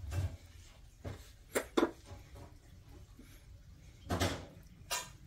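A few short, sharp clicks and knocks: a close pair about a second and a half in, then a longer rustling knock and one more click near the end.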